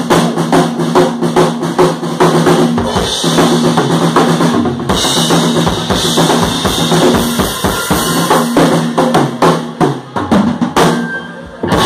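Acoustic rock drum kit played live in a drum solo: a dense, fast run of bass drum, tom and snare hits with cymbal crashes, easing off near the end.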